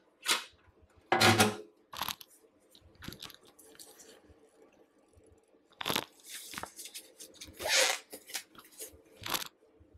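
Intermittent kitchen handling noises: short rustles, scrapes and knocks a second or two apart, as things on the counter are moved and put away.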